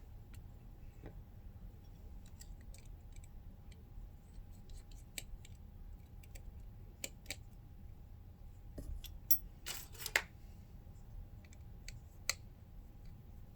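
Faint scattered clicks and taps of small tools and parts being handled during a phone repair, with a short rattling scrape about ten seconds in. A faint steady hum runs underneath.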